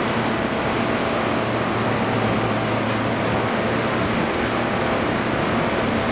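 Steady mechanical drone with a constant low hum, no distinct knocks or impacts.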